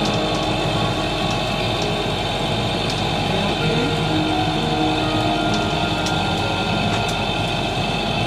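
Sailboat's engine running steadily under way, a constant drone with wind and sea noise over it.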